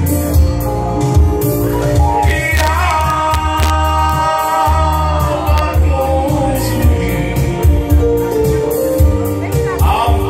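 Loud amplified music with a singing voice over a heavy, pulsing bass.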